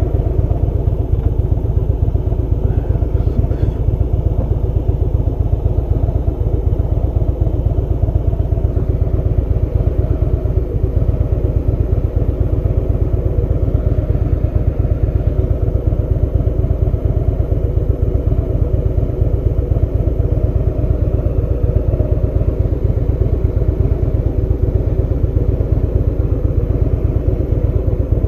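Harley-Davidson V-twin motorcycle engine running at a steady cruising speed, heard from on the bike, with a dense, even pulse of exhaust beats.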